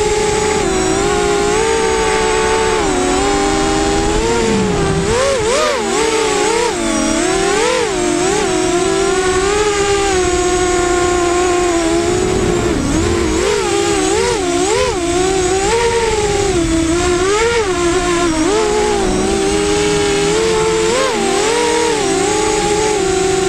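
FPV racing quadcopter's electric motors whining, the pitch swooping up and down quickly with throttle changes; several motors run at slightly different pitches.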